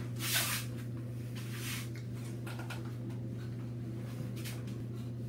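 Handling noise from an acoustic guitar being swung into place on its strap: a few short rustles and brushes of clothing, strap and guitar body, over a steady low hum.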